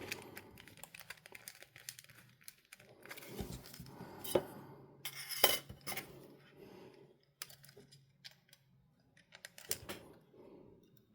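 Small plastic and metal parts of an opened portable MiniDisc player being handled, giving scattered light clicks and clinks, with a faint steady low hum through the middle seconds.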